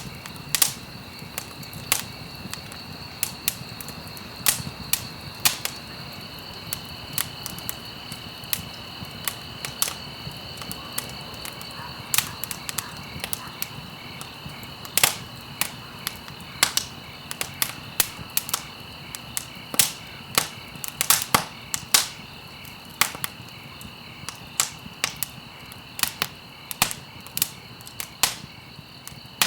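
Campfire of burning stalks crackling, with sharp irregular pops, at times several in quick succession, over a soft hiss of flame. A steady high-pitched trill runs behind it.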